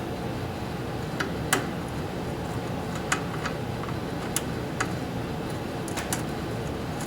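Scattered light clicks and taps of metal parts and hand tools being handled, about eight in all, over a steady low background hum.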